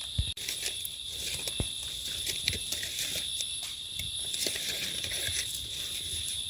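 Steady, high-pitched insect chorus drone, with scattered clicks and rustles of hands and a knife working in dry leaf litter.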